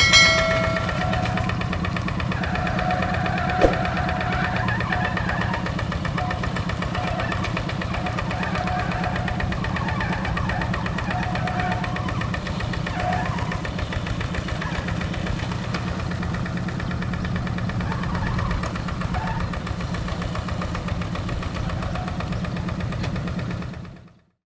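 Single-cylinder Yanmar diesel engine of a two-wheel rice-field hand tractor running steadily with a low throb, with faint intermittent squeaks and one sharp click about three and a half seconds in. The sound cuts off just before the end.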